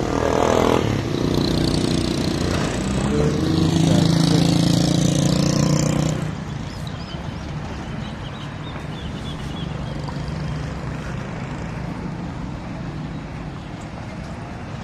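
A motor vehicle's engine running close by, loud and steady for about six seconds, then dropping away suddenly and leaving steady street traffic noise.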